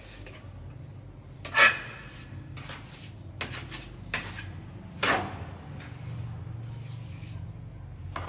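Several short, sharp scraping strokes on a hard surface, the loudest about one and a half seconds in and again about five seconds in, over a low steady hum.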